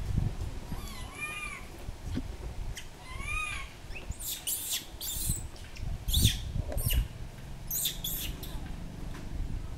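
A macaque gives two short high calls, each rising then falling in pitch, about one and three and a half seconds in. Around them are scattered short rustling, crackling noises and a knock about six seconds in.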